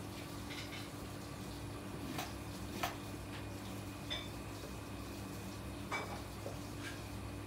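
A sushi knife cutting spear squid on a wooden cutting board, giving about four short, sharp taps of the blade against the wood, over a steady low hum.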